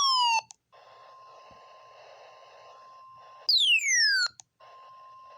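NOAA Weather Radio receiver sounding its warning alert: a faint steady tone near 1 kHz over radio static, broken twice by loud falling electronic sweeps. The first sweep ends just after the start, and the second, under a second long, comes about three and a half seconds in.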